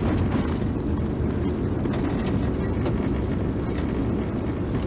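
Car driving along a sealed road: a steady low rumble of engine and tyres.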